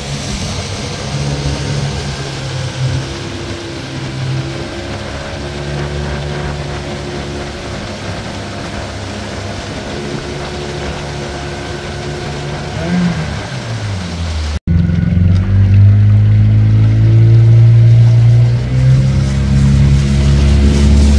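Small fishing boat's engine running under way, a steady note over the hiss of wind and water. The pitch wavers briefly about two-thirds through, then after a sudden cut the engine sounds louder.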